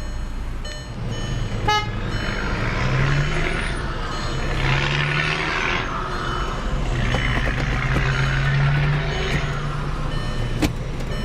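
2003 Volkswagen Passat's 1.8-litre turbocharged inline four-cylinder running just after a cold-free start-up, its pitch rising and falling back twice as it is revved. A short electronic beep sounds about two seconds in.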